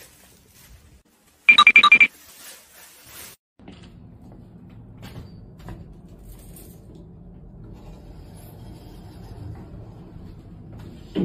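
A brief run of about five rapid, high-pitched beeps, then a steady low hum.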